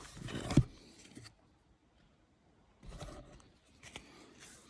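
Trading cards being handled and slid against each other, a rustling with a sharp knock about half a second in, then softer rustling after a short lull.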